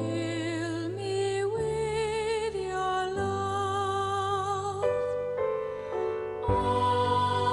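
Slow, gentle sacred music: a melody of long held notes with vibrato over sustained low chords, changing every second or two.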